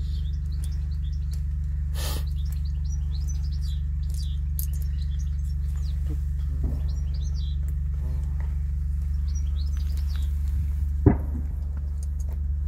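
Small songbirds chirping and twittering over a steady low hum, with one sharp knock near the end.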